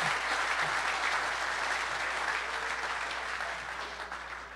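Audience applauding, the clapping fading off near the end.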